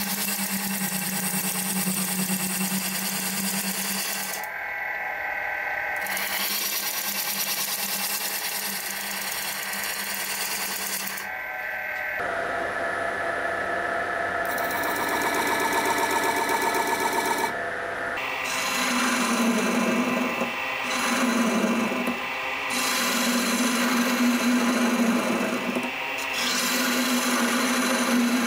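A steel turning tool cutting and scraping the face of a figured maple bowl blank spinning on a wood lathe, over the lathe's steady low hum. The sound changes abruptly several times between short takes.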